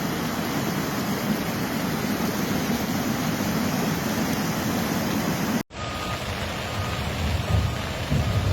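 Steady rushing noise that cuts off abruptly about five and a half seconds in. A rumbling vehicle follows, with a faint reversing alarm beeping a little more than once a second.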